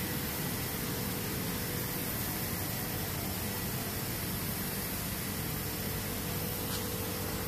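Steady even hiss with a faint steady hum underneath: background noise of running workshop equipment.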